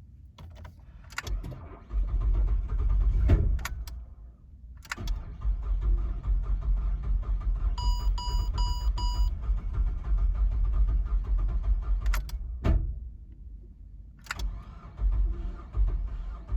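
A Ford Falcon BF with a dedicated-LPG straight-six being started with difficulty: an uneven low rumble of cranking and rough running, broken by several sharp clicks. About halfway through, four quick chime beeps sound.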